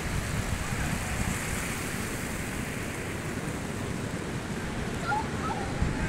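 Ocean surf washing steadily on the shore, with wind rumbling on the microphone. A couple of faint short chirps come about five seconds in.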